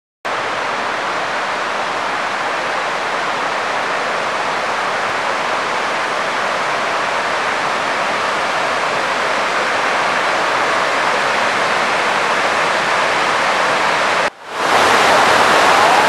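Steady roar of the Rhine Falls, a large waterfall's white water rushing without break. Shortly before the end it drops out for an instant and comes back slightly louder.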